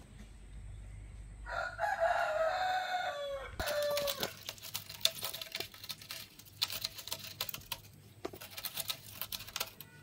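A rooster crows once: a pitched call of about two seconds that falls in pitch at its end. A dense run of scratchy clicks and rustles follows.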